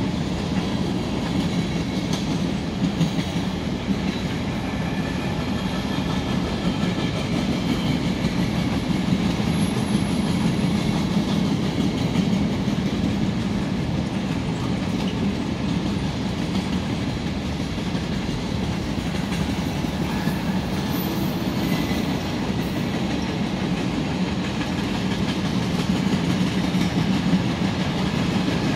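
Freight cars of a long freight train rolling past, a steady rumble of steel wheels on the rails.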